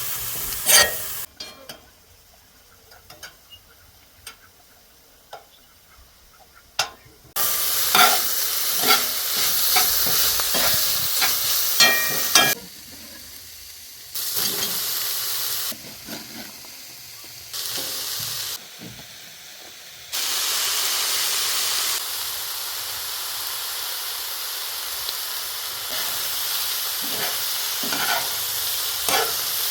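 Food sizzling as it fries, with scattered clicks and clatters of stirring and of a utensil against the cookware. The sizzle comes and goes in abrupt steps, with a quieter stretch of just a few taps between about one and seven seconds in.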